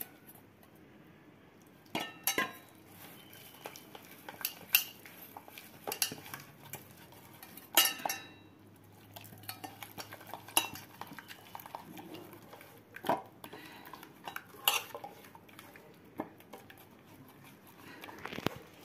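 Gram-flour batter being mixed by hand in a stainless-steel bowl: soft stirring with irregular clinks and knocks of fingers against the steel.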